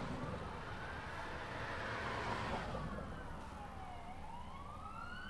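Fire engine's siren sounding a slow wail: the pitch rises for about two seconds, falls to a low about four seconds in, then climbs again. A steady low rumble runs underneath.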